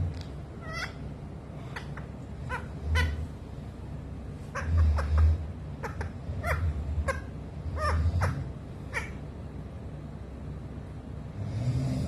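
Young green parakeet making a string of short, squeaky chirps, about fifteen over nine seconds, as it courts a person's foot. A few low muffled bumps sound underneath.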